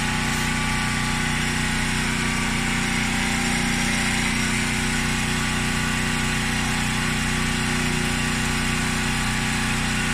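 Small portable gasoline generator engine running steadily at constant speed, powering a washing machine.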